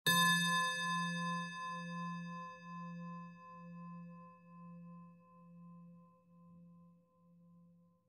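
Singing bowl struck once, ringing with a low hum and several higher overtones. The high overtones fade within a few seconds while the low tone wavers and slowly dies away over about nine seconds.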